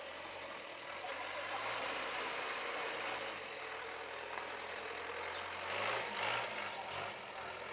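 Off-road 4x4's engine running at low revs as it crawls down a steep rutted dirt slope and across the ruts. A brief louder rush of noise comes about six seconds in.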